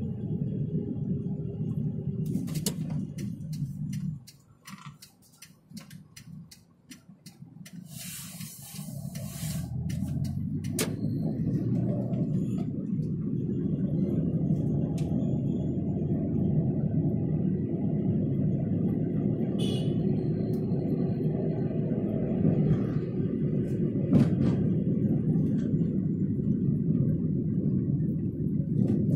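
Car engine and road noise heard from inside the cabin: a low, steady rumble that drops away for several seconds about four seconds in, then builds back up. A run of sharp clicks comes while it is low.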